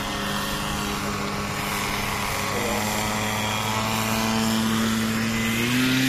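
Model-airplane engine of a radio-controlled aerobatic biplane running steadily at speed. Near the end its note steps up in pitch and gets louder as the throttle is opened to hold the plane nose-up on its propeller in a hover.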